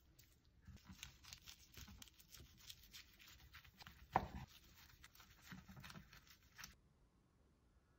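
Kitchen knife slicing through a kimbap roll on a wooden cutting board: a run of short crisp crackles as the blade cuts the dry seaweed wrap, with light knocks of the blade on the board and one louder knock about four seconds in. The cutting stops near the end.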